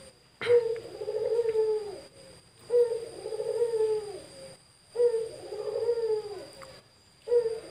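A male puter dove (domestic ringneck dove) cooing over and over, about one call every two seconds. Each call is a short sharp note running into a long drawn-out coo that slides slightly down in pitch. Three full coos and the start of a fourth near the end.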